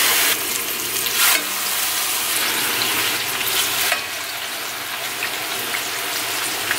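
Seasoned chicken thighs sizzling in hot olive oil in a skillet as they are laid in skin side down with tongs to brown. The sizzle is loudest at the start and swells again briefly about a second in.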